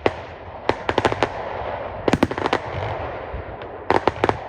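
A fireworks display: irregular sharp bangs and crackles, bunched about a second in, around two seconds in and again near the end, over a low rumble.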